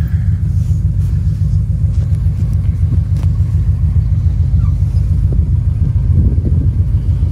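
An off-road vehicle's engine idling close by, a steady low rumble that flutters slightly.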